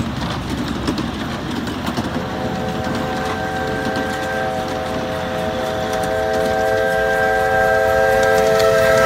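A 7½-inch gauge ride-on model train running along the track, then about two seconds in its locomotive sounds a long, steady multi-note chime whistle, several notes sounding together as one chord.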